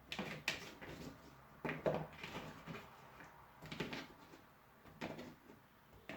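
Kitchen knife cutting a carrot on a chopping board: scattered short knocks of the blade through the carrot onto the board, about a second or two apart.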